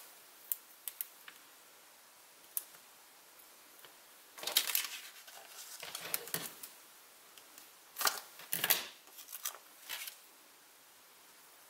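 Cardstock pieces being handled and pressed into place on a craft table: scattered light clicks and taps, with several short bursts of paper rustling.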